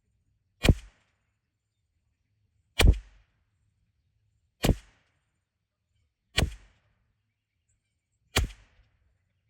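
Five .22LR rimfire shots from a CZ 457 bolt-action rifle, about two seconds apart, each a sharp crack with a brief tail.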